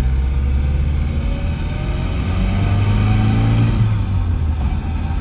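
Nissan S14's four-cylinder engine heard from inside the cabin, revving up steadily under acceleration. The revs drop about four seconds in at a gear change.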